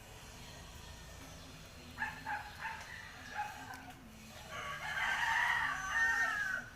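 A rooster crowing twice: a shorter, broken call about two seconds in, then a louder, longer crow that falls in pitch at the end.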